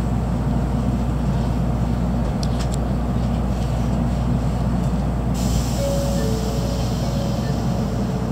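Steady low hum inside a Tokaido Shinkansen passenger car at the station platform. About five seconds in, a high hiss starts suddenly, and a faint pair of short tones sounds near the end.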